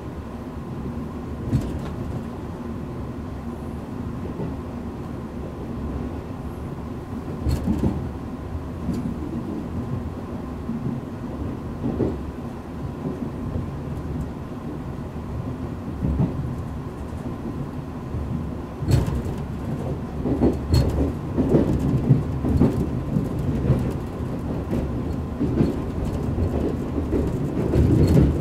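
Running noise inside a coach of the Hokutosei sleeper express: a steady low rumble of wheels on rail with an occasional sharp click. About two-thirds of the way through it grows louder and rougher, with frequent knocks.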